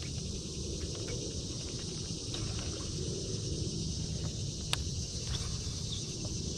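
Steady high-pitched drone of insects in the shoreline trees, over a low rumble, with one sharp click near the end.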